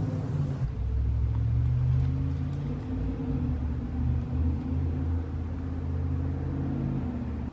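A steady, low engine-like rumble with several droning low tones, cutting off abruptly at the end.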